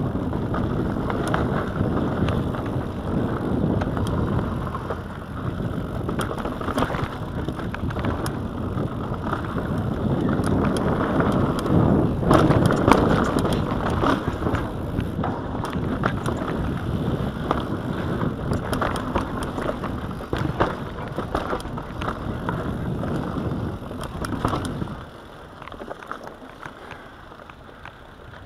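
Mountain bike riding fast down a dirt singletrack: a steady rush of tyre and trail noise with the bike rattling and clicking over bumps. About 25 seconds in the noise drops sharply as the ride slows onto smoother ground.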